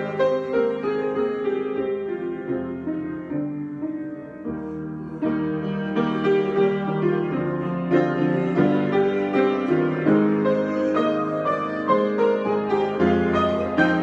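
Piano improvisation: sustained chords under a moving melody, softer and sparser for the first few seconds, then fuller with more high notes from about five seconds in.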